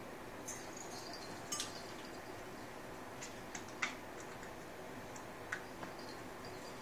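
Scattered light plastic clicks and rattles from a kitten batting at the toys of a baby activity jumper, irregular and a second or so apart, the sharpest a little under four seconds in, over a steady faint background hum.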